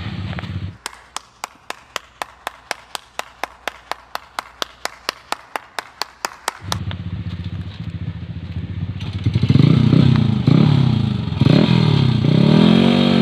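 Dirt bike engine running. Under a second in it gives way to one person clapping at a steady pace, about five claps a second, for some six seconds. Then the engine returns and is revved up and down again and again on a steep climb.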